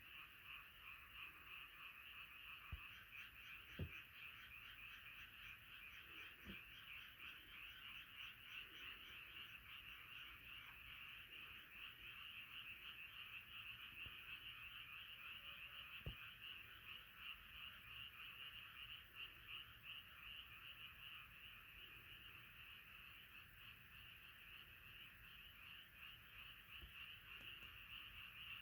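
Faint chorus of many frogs calling at once, a dense continuous pulsing croak. A few soft knocks stand out about 4, 6.5 and 16 seconds in.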